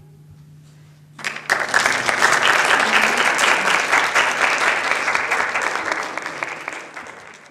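Audience applauding, breaking out about a second in and fading away near the end.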